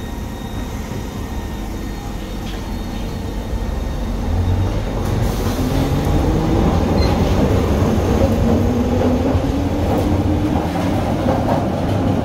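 Glasgow Subway train pulling away from the platform. A low rumble of wheels on rail grows louder about four seconds in, and a motor whine rises steadily in pitch as the train picks up speed.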